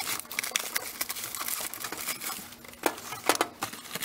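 Plastic air-cushion packaging and plastic film crinkling and rustling as they are handled and pulled from a cardboard box, with a few sharper crackles about three seconds in.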